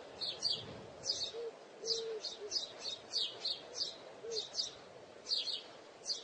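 Small birds chirping in quick high clusters of two or three notes every half second or so, with a few short, low notes in the first half.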